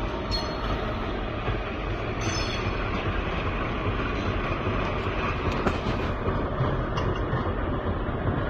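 Freight train wagons rolling through a rail yard: a steady rumble.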